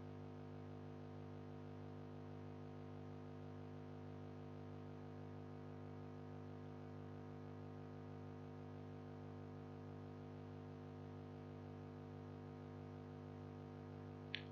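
Faint, steady electrical hum with a buzz, like mains hum picked up on a microphone line, with one faint tick just before the end.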